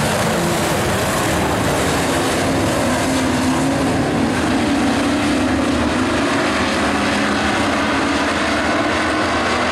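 A pack of dirt-track race trucks running hard under green, their engines making a loud, steady drone whose pitch shifts a little as the field goes around the track.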